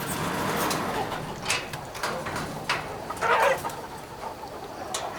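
A flock of free-range chickens calling and clucking, with many short sharp clicks among them and one louder call about three and a half seconds in.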